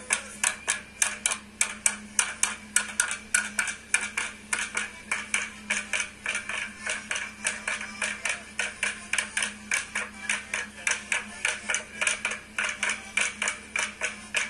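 Rhythmic clapping, about three to four sharp claps a second, keeping time for a folk dance, with a button accordion playing faintly underneath.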